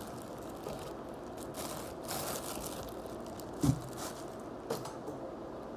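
Rustling and crinkling handling noises, with a sharp thump a little before four seconds and a smaller click about a second later.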